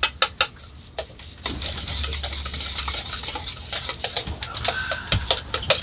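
Wire whisk beating lemon poppy seed muffin batter in a stainless steel mixing bowl: quick rhythmic clinks and scraping of wire on metal, about five strokes a second, with a short lull about a second in.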